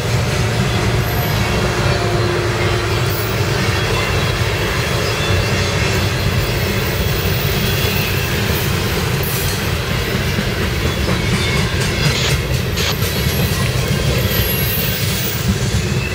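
Freight train of refrigerated boxcars rolling past close by: a steady loud rumble of steel wheels on rail, with a run of clicks from wheels over the rail joints about three-quarters of the way through and a few faint, brief high wheel squeals.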